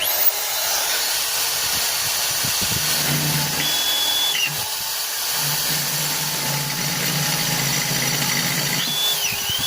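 Makita electric drill spinning up at full speed and running steadily as an 8 mm bit bores through steel plate, enlarging a pilot hole. A high squeal from the bit comes in twice, and the motor spins down at the end.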